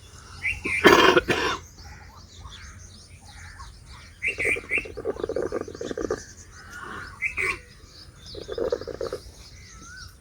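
A person coughing about a second in, with birds chirping.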